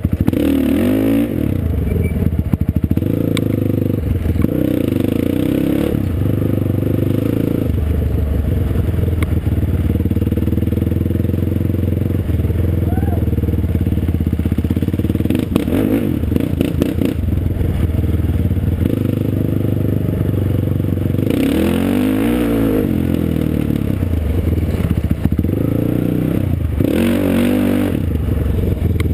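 Off-road vehicle engine running under way on a dirt trail, its pitch rising and falling with the throttle, with two bursts of revving in the last third. Light rattles and clatter from the ride over the engine.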